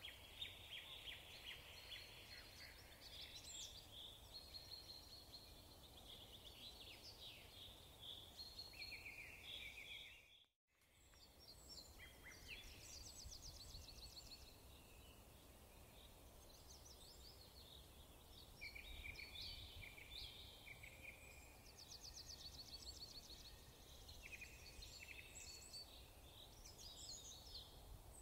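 Faint songbirds chirping and trilling, with quick repeated notes and short slurs, cut off by a brief gap of silence about ten seconds in before the birdsong resumes.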